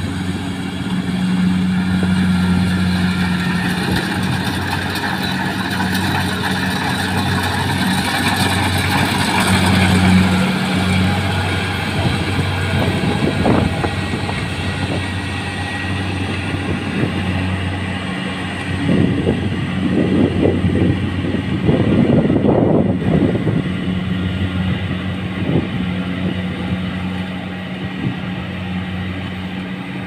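Rice combine harvester running as it harvests, a steady engine drone with a low hum under it. Rougher, louder noise swells for a few seconds past the middle, then settles back.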